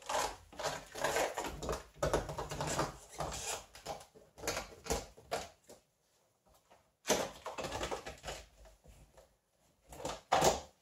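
Old rubber door weatherstrip seal, smeared with silicone, being pulled off the metal door-opening flange of an '86 Ford Mustang: irregular crackling, scraping and rubbery tearing in uneven spurts, with a pause of about a second midway.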